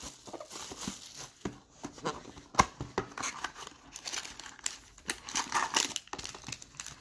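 Plastic wrapping on sealed trading-card boxes and packs being torn open and crinkled by hand: an irregular run of crackles and rustles with a sharper tear about two and a half seconds in.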